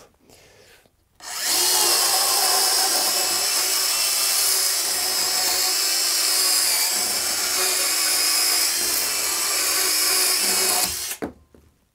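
Bosch EasyCut 12 cordless Nanoblade mini chainsaw sawing through a pine timber: a steady, loud, hissing cutting sound that starts about a second in and stops about a second before the end.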